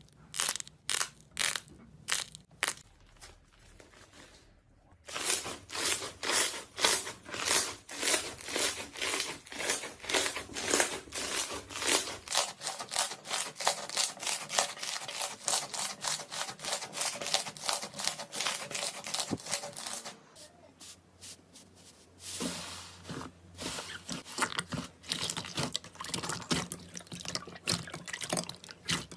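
Slime being squeezed and worked by hand, making runs of small clicks and pops, several a second. There is a short lull about two-thirds of the way through before the clicking resumes.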